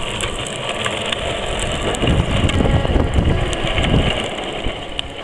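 Small wheels rolling over rough asphalt, a steady rumble with scattered clicks and rattles, heavier from about two to four seconds in.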